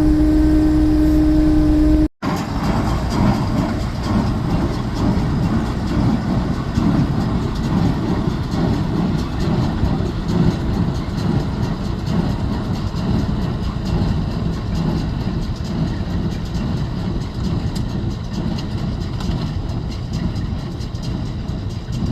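John Deere 6300 tractor pulling a John Deere 328 small square baler: a steady engine drone, then after a brief dropout about two seconds in, the baler's rhythmic mechanical clatter over the running engine.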